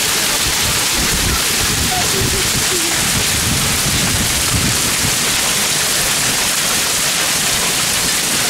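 Hailstorm: hail and heavy rain pelting down, a dense, steady hiss.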